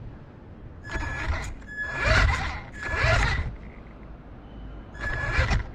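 Four short, harsh animal calls, the last one after a pause of about a second and a half.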